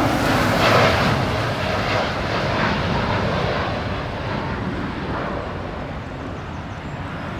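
Jet airliner departing, its engine noise a wide, even rumble and hiss that slowly fades.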